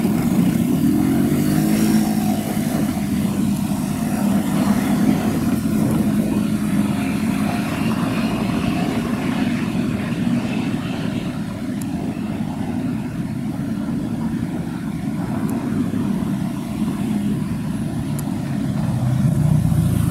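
Steady low rumble of street traffic and running car engines, with one engine note rising and falling in pitch in the first couple of seconds.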